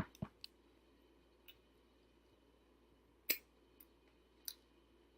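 Quiet chewing of a doughnut, close to the microphone, heard as a few soft, separate mouth clicks and smacks, the loudest a little past the middle.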